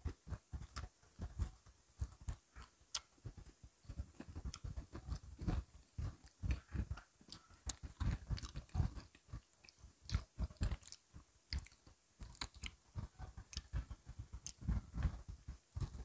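Close-miked crunching and chewing of Oreo chocolate sandwich cookies: irregular crisp bites and crunches, the mouth sounds of people eating.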